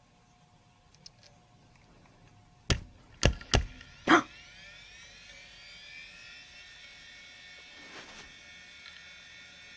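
Quantum Fireball IDE hard drive smacked hard four times in quick succession. Right after the last knock its spindle spins up with a rising whine that settles into a steady high whine. The knocks have apparently freed heads stuck to the platter, so the dead drive starts working again.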